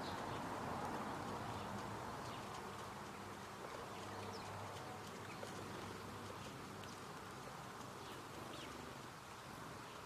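Garden ambience: a steady background hum with short, high bird calls and small ticks scattered throughout.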